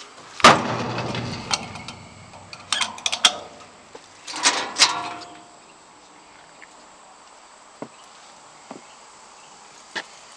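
Steel compartment door on a JLG 601S boom lift being opened: a loud bang and rattle about half a second in, a few sharp latch clicks around three seconds, and another bang with a scrape near five seconds, then only faint clicks.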